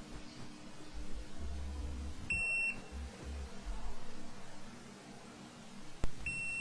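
Digital multimeter's continuity buzzer beeping: a short high-pitched beep about two and a half seconds in, then a click and a longer steady beep starting near the end as the probes make contact. The beep signals continuity between the probed points on the motherboard.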